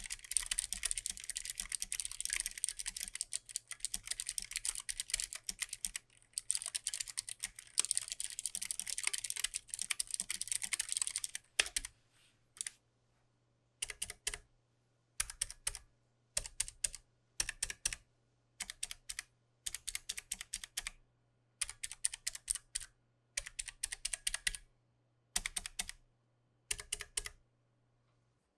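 Keychron K3 low-profile mechanical keyboard with optical switches being typed on. About eleven seconds of fast continuous typing, briefly broken around six seconds in, give way to short separate bursts of keystrokes roughly once a second.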